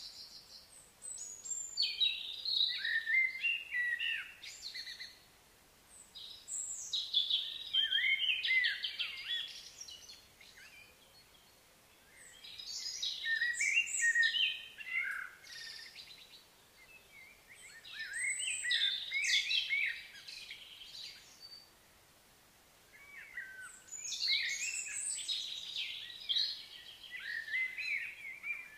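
Songbird singing in phrases of rapid, varied, high chirping notes, each phrase lasting three or four seconds, repeated about five times with pauses of a few seconds between.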